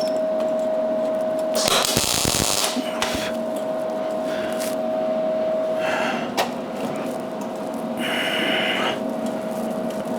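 Welder tack-welding steel in short bursts, four or so, the longest about two seconds in, over a steady hum; a sharp click a little past the middle.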